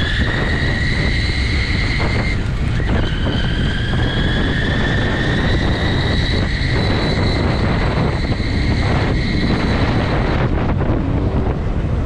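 Wind buffeting the microphone on a moving e-bike, over the high whine of its electric motor. The whine rises in pitch as the bike gathers speed, dips about two seconds in, then climbs again and holds steady.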